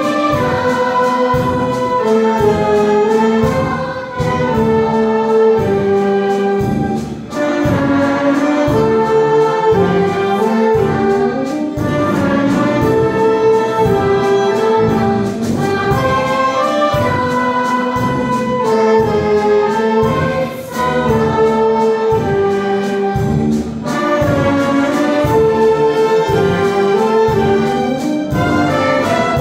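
Youth orchestra of accordions, flutes, violins and brass playing a song to a steady beat, with a children's choir singing along.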